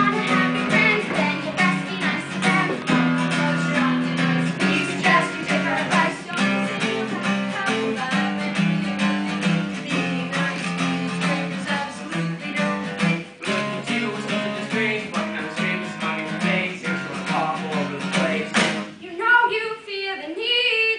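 Strummed acoustic guitar music with a steady, even strum. About nineteen seconds in, the guitar stops and voices start singing.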